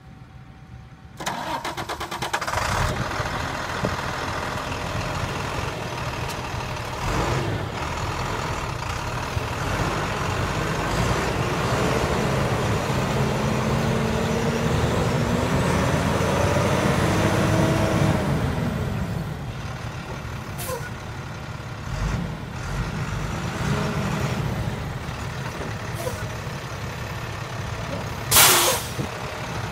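International DT466 turbocharged straight-six diesel in a 2007 International 4400 truck is started about a second in, runs, is revved up and back down, and settles to idle. A short, loud hiss comes near the end.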